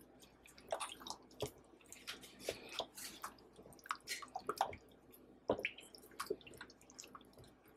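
Gloved hands squishing and turning chicken pieces in a glass bowl of thick buttermilk marinade: faint, irregular wet squelches and small splashes.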